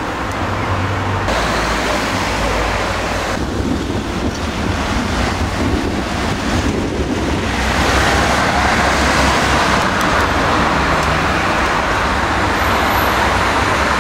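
Steady city traffic noise, an even roar of passing road vehicles with a low rumble, with a few abrupt shifts in tone at the edits.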